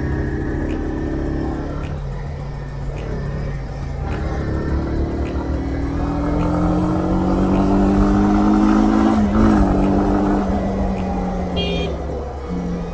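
Single-cylinder motorcycle engine under way, with wind rumble on the microphone: the engine note climbs steadily as the bike accelerates, dips briefly about nine seconds in at a gear change, then eases off near the end.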